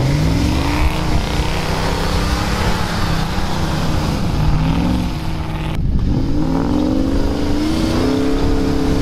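Lifted pickup truck's engine revving hard while driving through deep snow, its pitch climbing, dropping back and climbing again several times.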